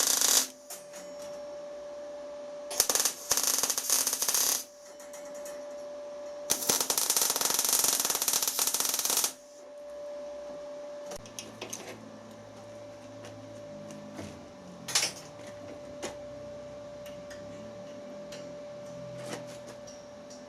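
Machine-shop work noise: three loud bursts of rushing, hiss-like noise in the first half, then scattered metallic clicks and taps, over a steady hum.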